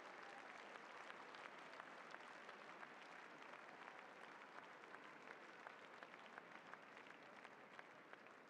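Faint applause from an arena crowd, many small hand claps merging into a steady patter that slowly dies down.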